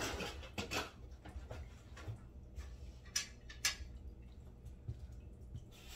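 Faint clicks and clinks of a metal doorknob assembly being handled, with two sharper clicks a little after three seconds in.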